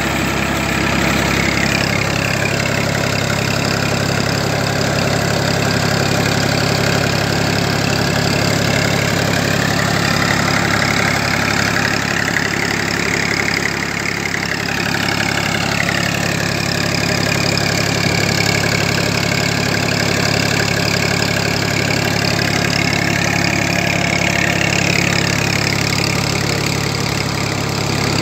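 Massey Ferguson 1035 tractor's three-cylinder diesel engine running steadily while it pulls a spring-tine seed drill through the soil. A higher tone rises and falls in pitch around the middle and again near the end.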